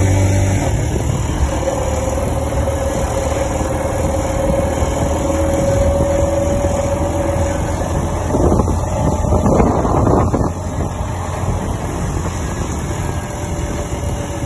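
Motorcycle engine running at a steady cruise, mixed with a rush of wind on the microphone. About eight seconds in the wind grows louder and rougher for a couple of seconds.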